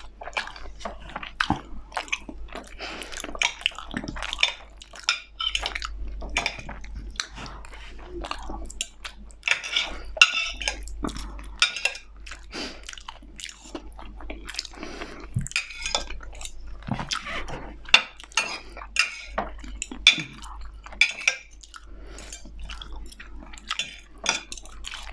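Metal knife and fork clinking and scraping on a ceramic plate in many irregular strokes as food is cut, picked up close by a clip-on microphone, with quieter chewing between.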